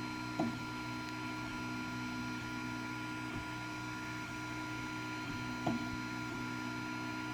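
Creality Ender 3 Pro 3D printer running, its stepper motors giving a steady hum with several steady tones. A sharp click from the extruder comes about half a second in and another about five seconds later, with a fainter one between: the strange extruder noise the owner is asking about.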